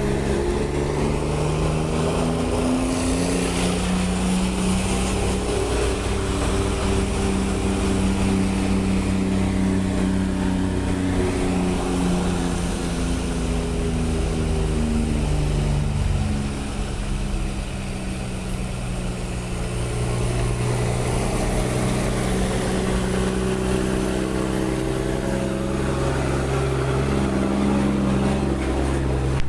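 Volkswagen Constellation truck's diesel engine running loud, its pitch rising and falling slowly several times, with a quieter, lower stretch a little past the middle before it picks up again.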